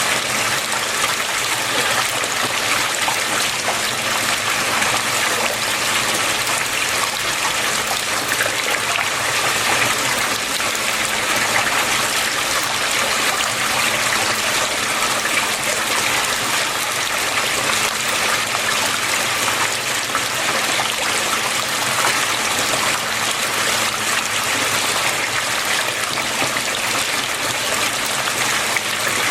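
Water flowing and trickling steadily, an even rushing with no breaks.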